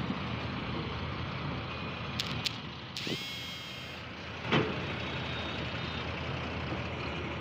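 Heavy diesel engine running steadily under load. A short high tone lasts about a second, starting about three seconds in, and a sharp thump follows soon after.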